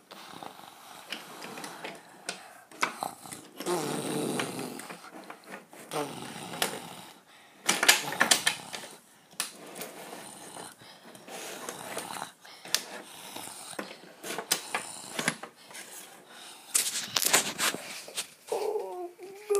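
Wooden toy trains and track clicking and clattering as they are handled and pushed around a wooden train table, with a child's breathy, growly mouth noises in between.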